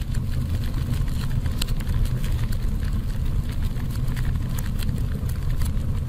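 Fire sound effect: a steady low rumble of burning flames with scattered crackles throughout.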